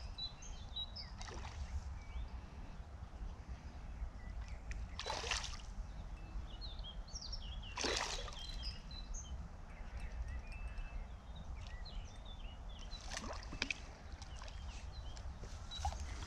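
Lakeside outdoor ambience: small birds chirping here and there over a steady low wind rumble on the microphone. A few short rushes of noise come about five and eight seconds in and twice near thirteen seconds.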